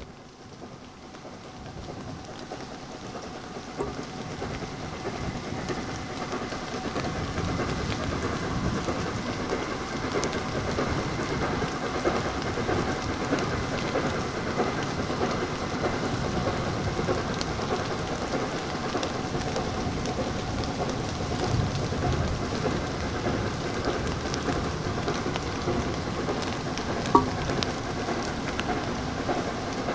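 Approaching steam train heard before it comes into view: a steady rushing noise that grows louder over the first several seconds and then holds. A single short sharp knock near the end.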